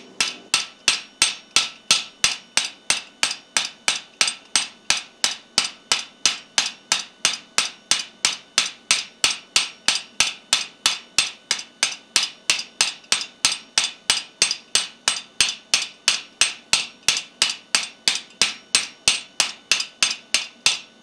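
Hammer blows on a guillotine tool sitting on the anvil, forging the shoulder of a tenon on a red-hot steel bar. The strikes come in a steady rhythm of about three a second, each a short ringing steel clang.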